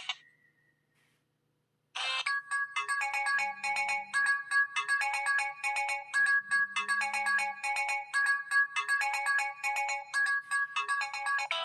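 Samsung Galaxy S (SCH-i500) ringtones: the previous tone cuts off at the start, and after about two seconds of silence a new electronic ringtone melody begins, the same short phrase of notes repeating a little over once a second.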